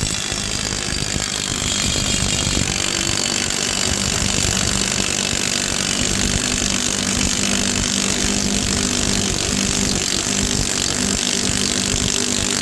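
A handheld power tool running steadily on a rusted leaf-spring nut: a loud, continuous whir with a steady hum beneath it, cutting off just after the end.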